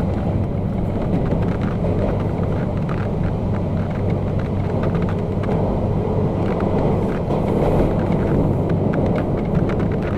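MTR K-Train electric multiple unit running at speed through a tunnel: a steady low rumble of wheels on rail, with a light patter of faint ticks over it.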